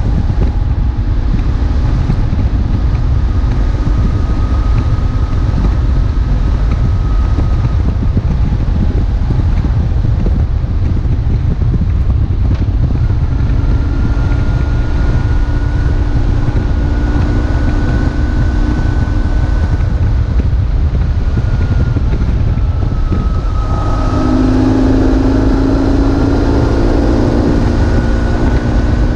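BMW R1150GS boxer twin running while riding, under heavy wind buffeting on the microphone. The engine tone drifts a little in pitch and grows louder near the end.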